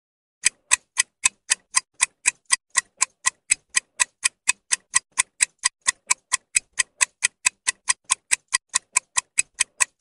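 Clock-tick sound effect of a quiz countdown timer counting down the time to answer: a steady run of sharp, evenly spaced ticks at about four a second, starting about half a second in.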